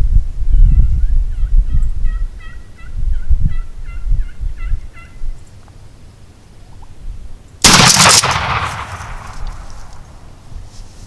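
A run of about a dozen turkey yelps, evenly spaced, then about seven and a half seconds in a single loud shotgun blast that rings out and dies away over about two seconds.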